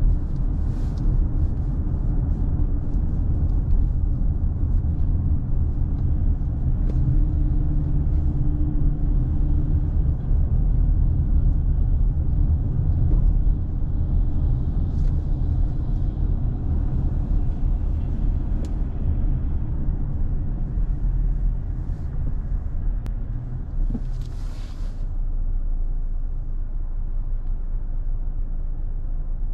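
Steady low road and engine rumble of a car driving along a city street. Two short hisses cut through it, about a second in and again about twenty-four seconds in.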